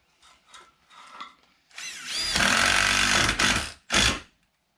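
Power drill spinning up and running for about two seconds, then a short second burst. A few faint handling clicks come before it.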